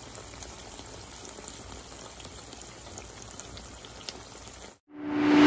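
Sauce bubbling steadily in a pan of tofu, a soft even hiss with scattered small pops. It cuts off about a second before the end, and music fades in.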